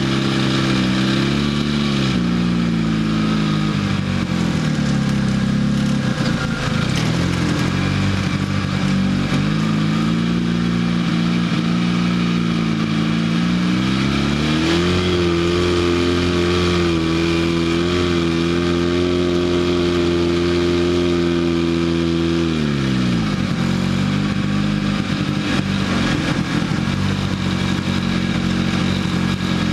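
Off-road vehicle's engine driving across sand dunes. Its pitch dips a few seconds in, climbs about halfway through and holds steady and higher for several seconds, then falls away near the three-quarter mark.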